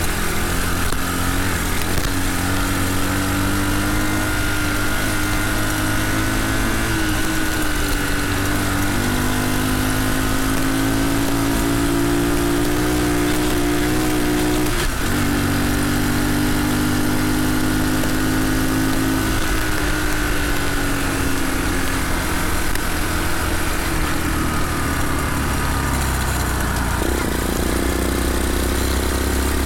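Redcat CT70-clone mini bike's small single-cylinder engine running under way. Its pitch rises and falls with the throttle, with sudden steps about a third and halfway in and again near the end.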